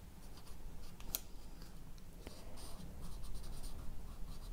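Thick felt-tip marker drawing short stripes on paper in a run of quick scratchy strokes, with one sharp click about a second in.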